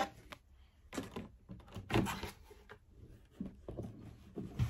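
Cardboard gift box being opened by hand: a few soft knocks and rustles as the lid is lifted and handled.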